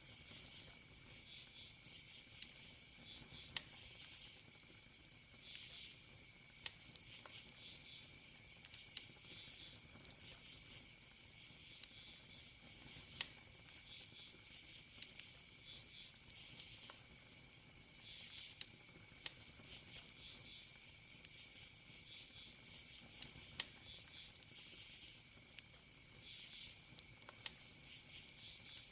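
Wood campfire crackling, with sharp irregular pops every second or so, over crickets chirping in a steady high trill with pulsing bursts.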